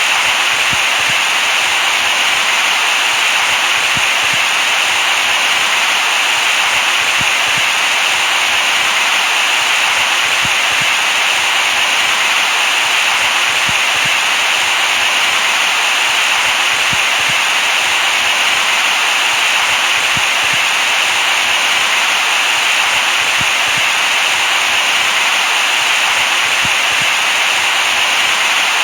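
Steady white noise, an even hiss that does not change, for soothing a crying baby to sleep.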